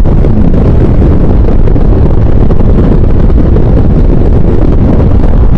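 Wind buffeting the microphone of a moving motorcycle: a loud, steady low rumble of rushing air that covers the ride noise.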